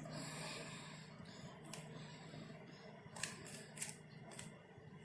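Faint clicks and scrapes of a 3x3 Rubik's cube's plastic layers being turned by hand, a few short ones coming more often in the second half.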